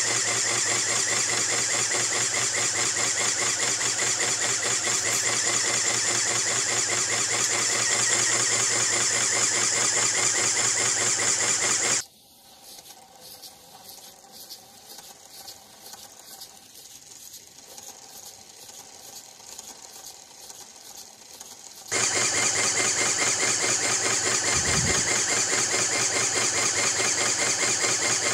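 3.9 cm³ LEGO pneumatic engine running at speed: a fast, even clatter of its pistons and valves with a steady hiss of compressed air. For about ten seconds in the middle it gives way to a much quieter, sparser rhythmic ticking of a smaller LEGO pneumatic flywheel engine.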